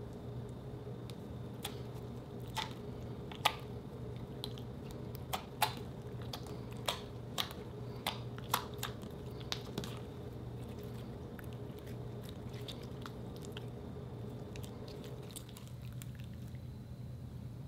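Soft slime being stretched, pressed and kneaded by hand, giving wet squishing and a run of sharp clicking pops, most of them between about two and ten seconds in.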